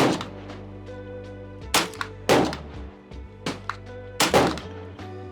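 Several gunshots at irregular intervals, the loudest about a second and three quarters in, at two and a quarter seconds, and twice a little after four seconds, with fainter cracks between them. They sound over a steady background music track.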